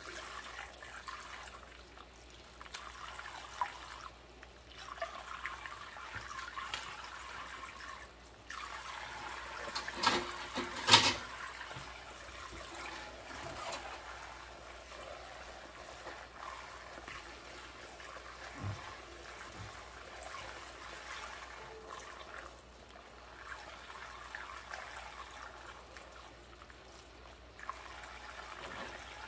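A thin stream of tap water trickles into a sink full of soapy suds while rubber-gloved hands swish and rub through the foam. About ten seconds in there are a couple of sharp, loud sounds.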